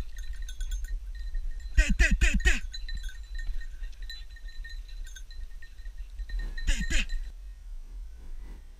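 Hunting dogs baying as they chase a wild boar, a quick run of about four barks around two seconds in and two more near seven seconds, over the steady jingle of a dog's bell. The bell stops at about seven seconds.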